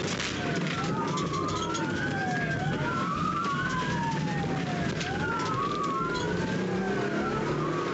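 Two police sirens wailing out of step, each gliding slowly up and down in pitch about every two and a half seconds so that their tones cross, over a steady low rumble.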